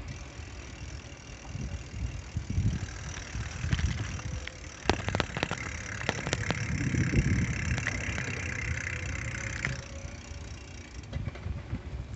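Riding a bicycle along a paved sidewalk with a handheld phone: uneven low rumble of wind and road on the microphone, with a run of sharp clicks and rattles from the bike about five to six and a half seconds in, and street traffic alongside.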